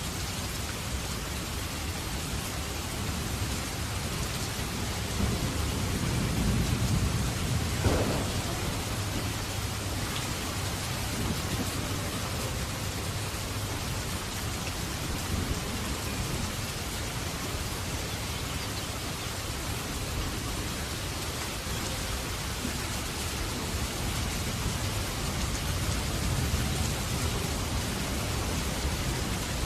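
Steady rain falling in an even hiss, with a low rumble of thunder building about five seconds in and ending in a sharp crack a few seconds later, and a softer rumble near the end.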